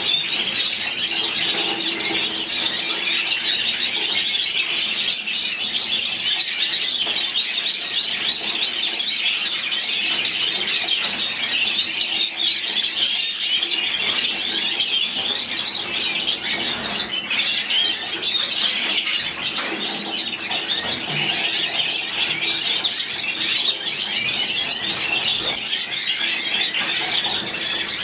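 White domestic canary singing, a long unbroken run of fast, high-pitched trills and warbles.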